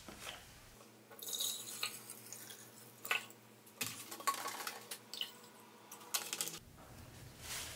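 White vinegar poured from a plastic jug into a glass jar: a splashing pour lasting about a second, followed by several sharp clicks and knocks from the jug and jar.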